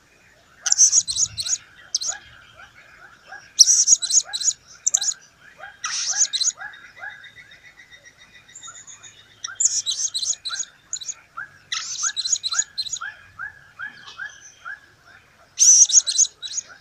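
Blue-crowned hanging parrot calling: clusters of shrill, high-pitched chirps, each about a second long, come every two to four seconds. Beneath them runs a steady series of lower short chirps at about three a second.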